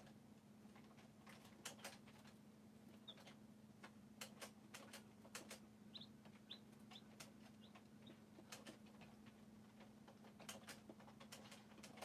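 Quail chicks moving and pecking in straw bedding: faint, scattered taps and rustles, with a few short, high peeps about three seconds in and again around six seconds. A low, steady hum runs underneath.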